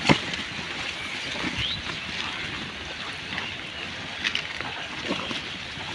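Pigs rooting and chewing through a heap of plastic rubbish: a steady rustling and crackling of litter, dotted with short clicks, with one sharp loud click at the very start.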